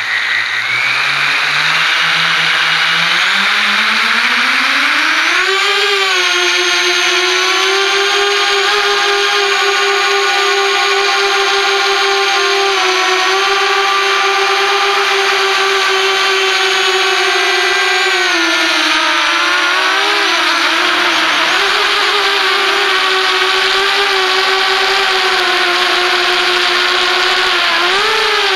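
Bee180 mini FPV quadcopter's motors and propellers whining. The pitch rises over the first few seconds as it spins up and lifts off, then holds a steady high note in flight, with a dip and wobble in pitch about two-thirds of the way through and a short surge near the end.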